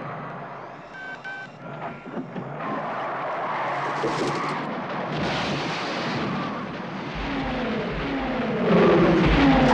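A couple of short electronic beeps from KITT's dashboard, then the black Pontiac Firebird Trans Am's engine running hard as it crashes through stacked cardboard boxes, with a sharp crash about four seconds in. Near the end the engine is loudest and its pitch slides as the car passes overhead.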